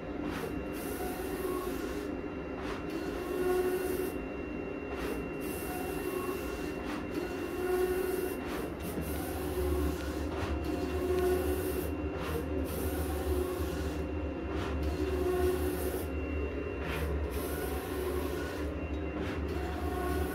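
HP large-format inkjet plotter printing: the print carriage runs back and forth across the paper in repeated passes, about one every second and a half, with faint clicks between passes. A low hum joins in about halfway through.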